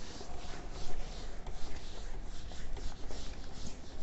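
Whiteboard eraser rubbing across a whiteboard in quick, repeated back-and-forth strokes, wiping off marker writing.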